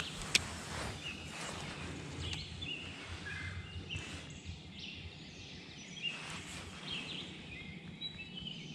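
Outdoor ambience of songbirds singing in short chirping phrases over a steady low hum, with one sharp click about half a second in.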